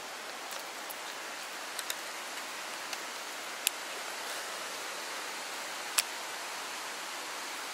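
Steady rush of a fast-flowing stream's current. A few sharp clicks cut through it, two of them louder, about halfway and near three-quarters of the way through.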